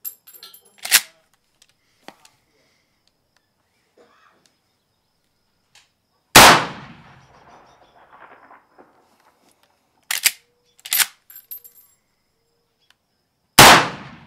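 Two .30-30 rifle shots about seven seconds apart, each a sharp crack with an echo that dies away over about a second. Between them come two short metallic clacks, a few seconds after the first shot, as the lever action is worked to chamber the next round.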